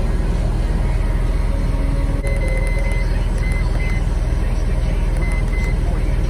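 Short, high electronic beeps from an iCarsoft CR Pro OBD2 scan tool as its buttons are pressed to move through the menus: one longer beep about two seconds in, then several brief ones. A steady low rumble runs underneath.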